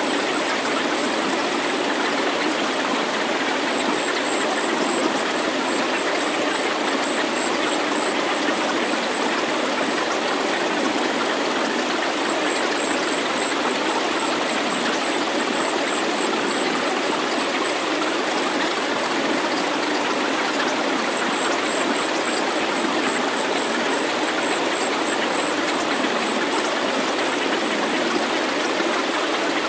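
A synthesized healing-sound track: an even, steady rushing hiss like running water, with the deep bass cut away, and a thin high whistle that flickers on and off above it.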